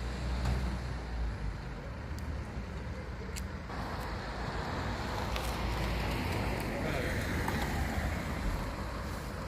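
Motor vehicle engine running with road noise: a steady low hum, and a rushing noise that grows fuller about four seconds in.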